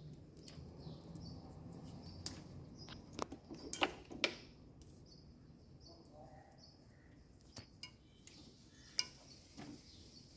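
Light clicks and metallic clinks of small tools and wire connectors being handled during appliance rewiring, with a quick run of sharper clicks about three to four seconds in and another single click near the end.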